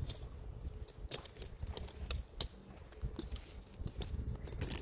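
Irregular light clicks and taps, several a second and at uneven spacing, over a low rumble.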